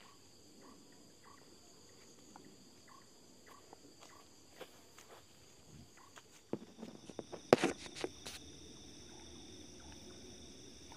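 Steady high-pitched chorus of crickets and other night insects, with a short burst of crackling and rustling about two-thirds of the way through as someone pushes through tall grass and brush.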